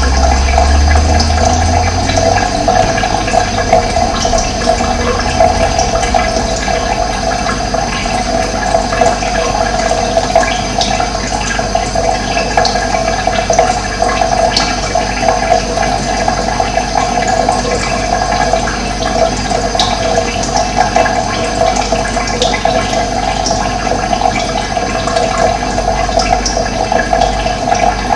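Running water flowing steadily, a continuous rushing sound.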